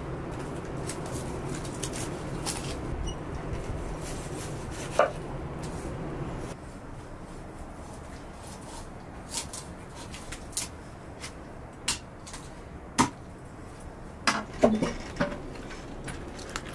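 A large kitchen knife knocking and tapping on a wooden cutting board as a whole raw chicken is cut up and handled: a few sharp knocks, several seconds apart, with a quick cluster near the end. A low steady hum runs under the first six seconds or so, then drops away.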